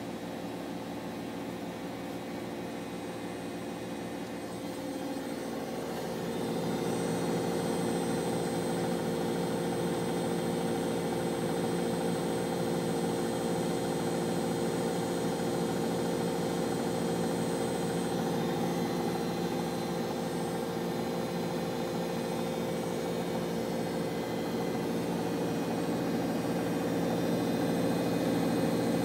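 Bosch WVT 1260 front-loading washing machine in its final spin, set to 1200 rpm: the motor and drum run with a steady hum of several tones that grows louder about five seconds in as the drum speeds up, then holds steady at high speed.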